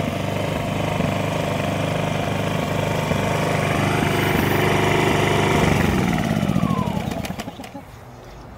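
Ryobi RYi2200 inverter generator running steadily. About seven seconds in, its engine note falls and it winds down to a much quieter level.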